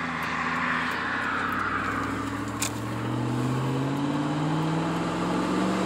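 Chevrolet Silverado's 4.8-litre V8 pulling the truck away from a stop in an ordinary-throttle acceleration, heard inside the cab. The engine note climbs steadily in pitch as the automatic transmission holds the gear, with a single light click in the middle.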